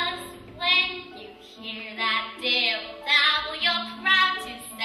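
Children's voices singing a stage-musical number in short phrases, some notes held with a wavering vibrato.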